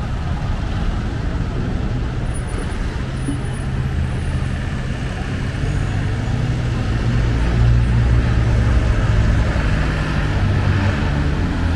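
Steady road traffic on a busy city street, with vehicle engines rumbling low; the engine sound grows louder past the middle as a vehicle comes close.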